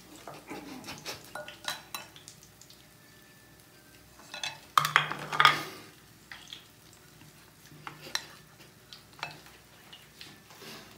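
White plastic spoon stirring and scooping cooked rice mixed with spice powders in a glass bowl, with scattered scrapes and light knocks against the glass; the loudest scraping comes in a short run about five seconds in.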